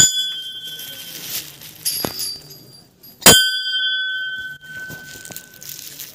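Temple bells being rung: a strike right at the start, a higher-pitched bell about two seconds in, and a loud strike a little over three seconds in that rings on and fades over more than a second.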